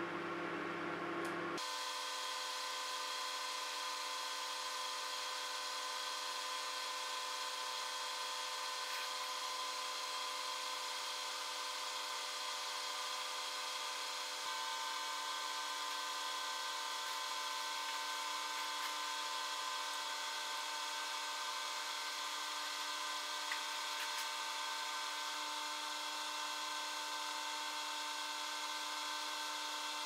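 Microwave oven running, a steady hum made of several held tones. About a second and a half in the sound changes abruptly as the footage switches to triple speed, and the deep part of the hum drops away. A few faint ticks come through now and then.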